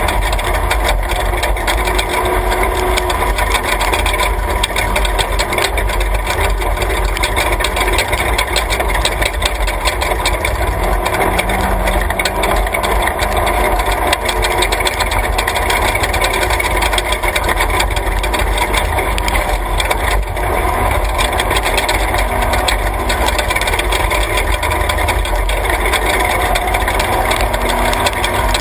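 Class 3 off-road race truck driving on a dirt road, heard from inside the cab: its engine runs steadily under a constant rattle and knocking of the chassis and road noise.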